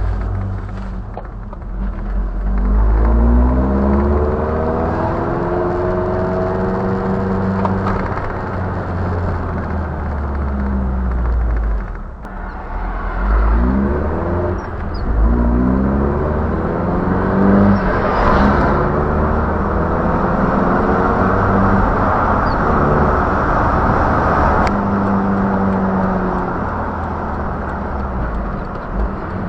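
1987 Toyota 4Runner's engine pulling as the truck accelerates, picked up by the dashcam's microphone inside the cab. The engine's pitch climbs and then falls back at each gear change, several times over, above a steady rumble of road noise.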